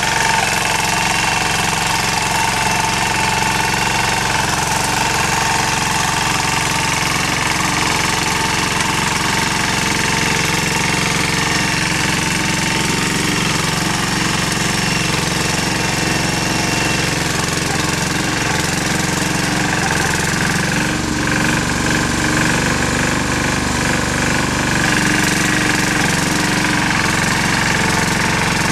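Yağmur YET-510 walk-behind tiller's engine running steadily under load as its tines churn garden soil. The engine note shifts about two-thirds of the way through.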